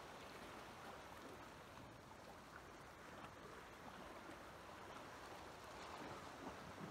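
Faint, steady wash of calm sea water lapping against shore rocks.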